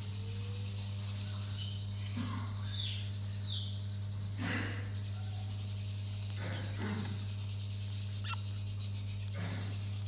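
An umbrella cockatoo chick making about four short sounds while being syringe-fed, the loudest about halfway through, with a few faint chirps around three seconds in. A steady low hum underlies everything.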